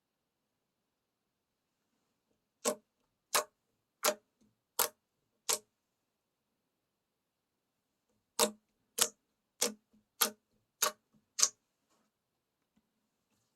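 Slime being pressed and played with, making sharp clicking pops at an even pace of about one and a half a second: a run of five, a pause, then a run of six.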